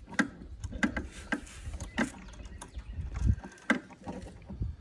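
Irregular clicks and knocks, about six spread over a few seconds, with some low rumbling between them: hand tools and metal parts being handled while a steering damper is fitted to a Harley Tri-Glide trike's front end.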